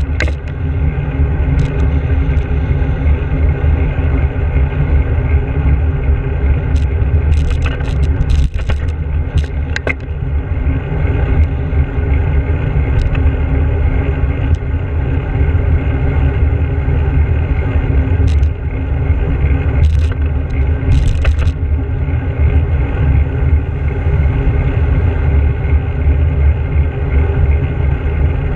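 Steady low rumble of wind buffeting and road vibration on a handlebar-mounted GoPro as a bicycle rides along tarmac, with a few sharp rattles about a third of the way in and again about two-thirds in.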